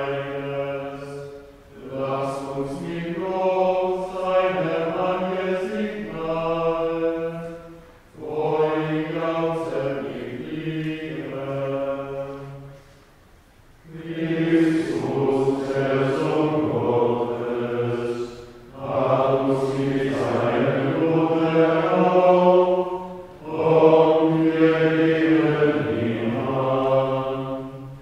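Men's voices chanting liturgical plainchant of the Good Friday Tenebrae office. They sing sustained phrases of a few seconds each, with short pauses for breath between them.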